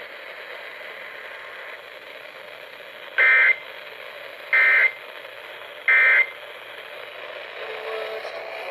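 Three short bursts of Emergency Alert System (SAME) digital data tones, each about a third of a second long and spaced about 1.3 seconds apart, over a steady radio hiss. This is the end-of-message code sent three times, closing the severe thunderstorm warning broadcast.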